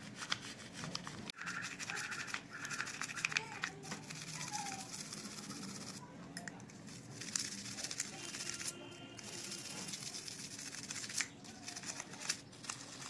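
Small bristle brush scrubbing a silver pooja article in soapy detergent solution, a fast, steady scratchy rubbing, to lift the black tarnish off the silver.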